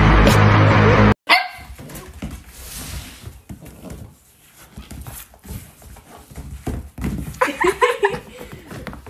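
Loud music cuts off about a second in. A puppy then gives a sharp bark, scuffles about on a rug, and near the end lets out a quick run of short, high yaps.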